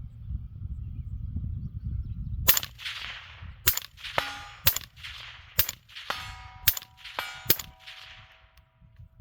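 Suppressed 5.56 AR-15 shots through a PTR Vent 3 suppressor, fired one at a time about a second apart, starting a couple of seconds in. Short metallic rings and clinks follow some of the shots.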